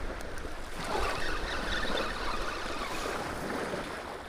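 Wind buffeting the microphone over small waves washing onto a sandy river shore.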